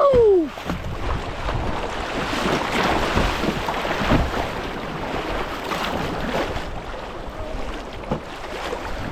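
Kayak on a moving river: water rushing and splashing around the boat, with wind buffeting the microphone. A person whoops once right at the start.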